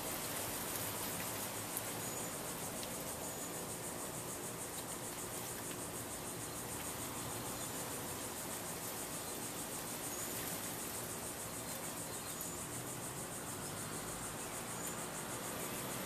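1979 Casablanca Columbia II ceiling fan running steadily at speed: an even rushing noise with a thin high hiss over it.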